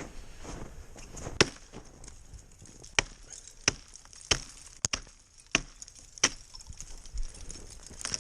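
Repeated sharp chopping blows, about seven of them, most coming every two-thirds of a second or so.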